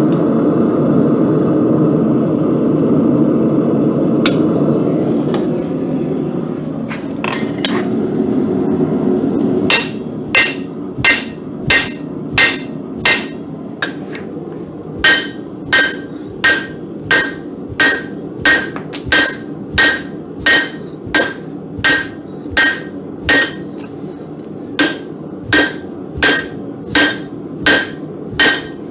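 A steady rushing noise for about ten seconds. Then a hand hammer strikes hot steel on an anvil in a steady rhythm of about three blows every two seconds, each blow with a bright ring from the anvil, pausing briefly twice.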